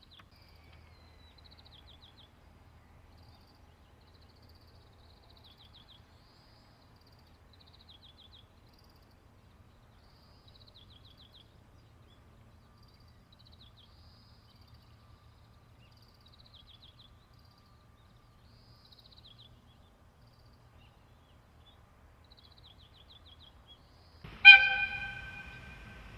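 A small bird sings a short trilled phrase about every two seconds over a faint low rumble. Near the end, an EF64 electric locomotive's whistle gives one loud, sudden blast that fades over about a second, followed by the steady noise of the approaching train.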